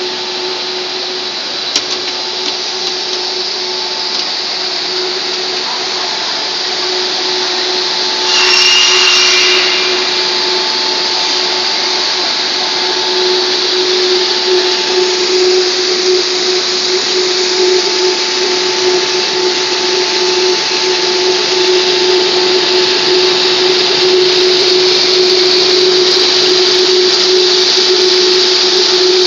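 Steady running noise of a PVC/wood-plastic profile extrusion line: a constant machine hum with a steady tone under a wide hiss. A louder burst of hiss about eight seconds in lasts a second or so, and the hiss grows slightly louder toward the end.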